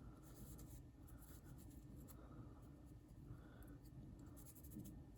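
Faint, irregular rubbing and scratching of an alcohol-dampened cloth gun patch wiping down pocket-knife parts.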